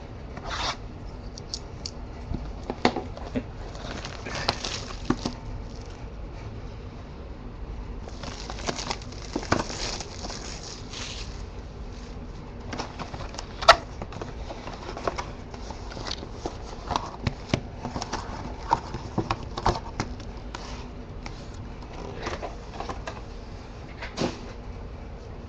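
Handling and opening a sealed box of trading cards: plastic wrap crinkling and cardboard rustling, with scattered clicks and taps. The longest stretch of crinkling comes about eight to eleven seconds in.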